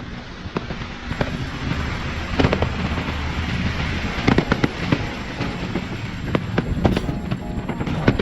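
Aerial fireworks display: a stream of sharp bangs and crackling bursts over a continuous hiss, growing busier about two seconds in.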